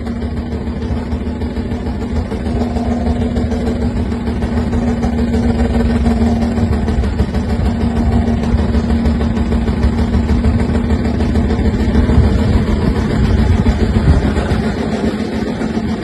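Car engine and exhaust under way, a steady running note that grows a little louder over the first several seconds and loses its held tone about twelve seconds in.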